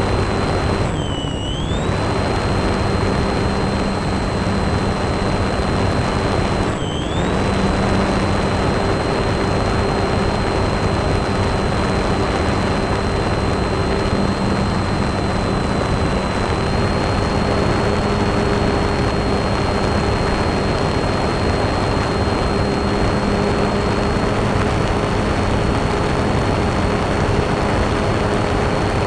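Motor and propeller of a radio-controlled model aircraft, heard from a camera on board: a steady high whine over rushing wind noise. The whine dips in pitch and swells back about a second in and again around seven seconds, as the throttle is eased off briefly and opened again.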